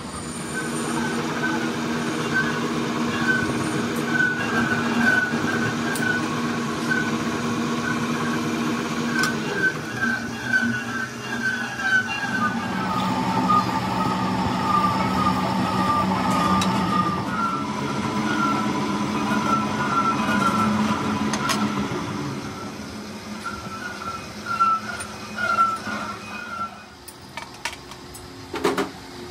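Metal lathe running with a steady hum and a regular high chirp a few times a second while a gunmetal starter-motor bush is turned and then filed on the spinning chuck. The hum drops off about three-quarters of the way through, a few knocks follow, and the machine stops near the end.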